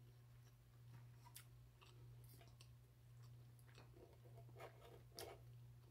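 Near silence: faint chewing with soft mouth clicks, then a few light clicks as a knife and fork cut a pork chop on the plate, over a low steady hum.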